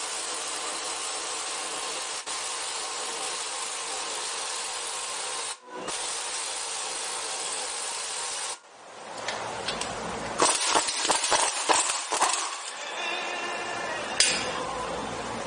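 Power tool driving the forcing screw of a wheel-bearing press tool, pressing a new front wheel bearing into the steering knuckle. It runs steadily with a short break about five and a half seconds in, then stops about eight and a half seconds in. Irregular clinks and rattles of the tool being handled follow.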